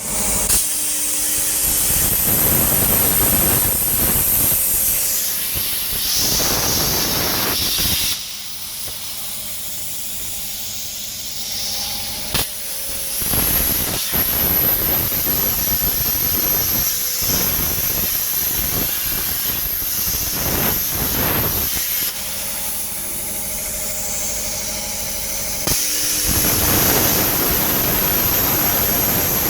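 CNC plasma cutter hissing steadily as the torch cuts a metal lattice pattern, with a thin high whistle over the hiss. It eases off twice, for a few seconds each, about eight and twenty-two seconds in, before running loud again.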